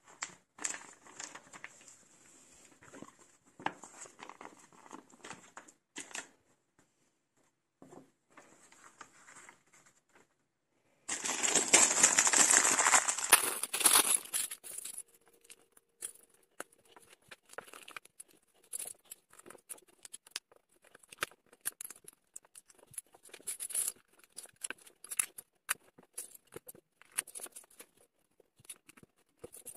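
A plastic bag of LEGO pieces is crinkled and torn open, the loudest sound, about a third of the way in. It is followed by a long run of small sharp plastic clicks and clatters as LEGO bricks are handled and snapped together. Faint rustling comes before it, broken by a few seconds of dead silence.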